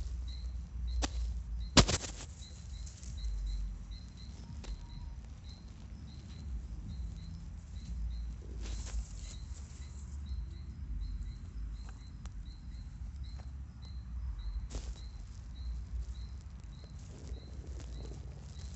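Horse's gut sounds: low, uneven rumbling and gurgling of the stomach and intestines, broken by a sharp knock just under two seconds in and a few fainter clicks. A faint high chirp repeats about three times a second behind it.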